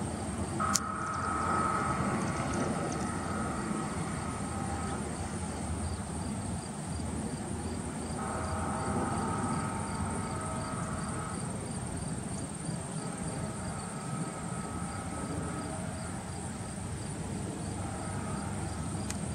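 Distant horn of an approaching freight train, sounding several long blasts over a low rumble. Insects chirp and buzz steadily throughout.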